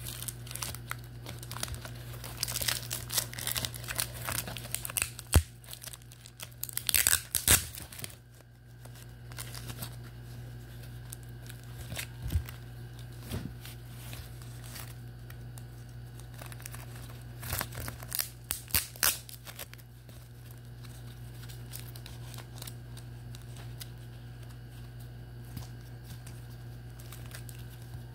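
Clear plastic wrapping and tape crinkling and tearing as a trading card in a plastic sleeve is worked out of its cardboard holder. The sharpest crackles come in bursts during the first third and again briefly about two-thirds through, with softer handling between, over a steady low hum.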